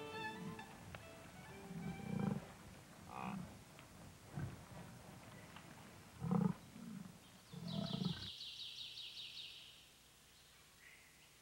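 European bison grunting and bellowing, a series of short, low calls, with a rapid high-pitched trill about eight seconds in.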